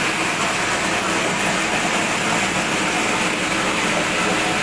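Plastic-waste shredding machine running steadily: a constant motor hum over a dense mechanical noise, unchanging throughout.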